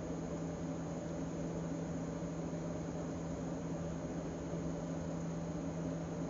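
Steady background hum with a constant hiss, unchanging throughout, like a fan or appliance running.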